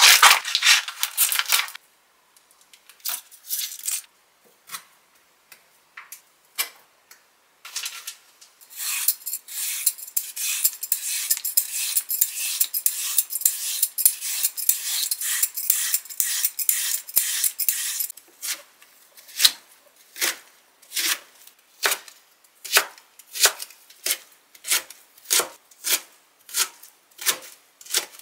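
Plastic food packaging crinkling as it is torn open, then a run of fast scraping strokes as a vegetable peeler shaves a carrot into ribbons. From about two-thirds of the way in, a kitchen knife chops the carrot ribbons into strips on a cutting board, in a steady rhythm of a little more than one stroke a second.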